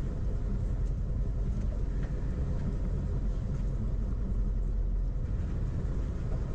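Sport-fishing boat's engine running with a steady low rumble.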